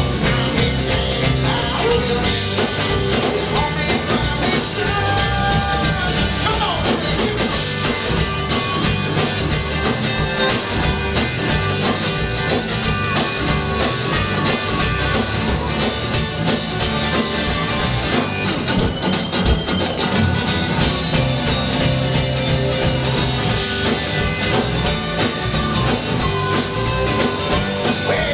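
Live country-rock band playing: drum kit, guitars and bass, with singing.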